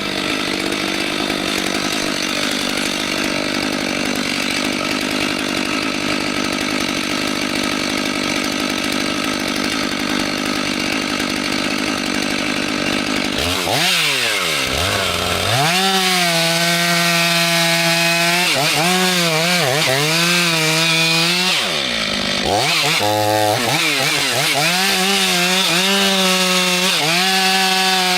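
Chainsaw cutting into wood under load, then dropping in pitch as it eases off about halfway through and revving back up. It runs at high revs with its pitch wavering as it cuts, and dips once more briefly later.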